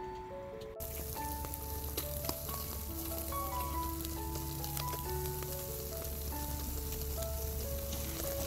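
Mackerel sizzling as it grills over charcoal in a wire grill basket, a steady hiss that starts suddenly about a second in. A simple melody of background music plays over it.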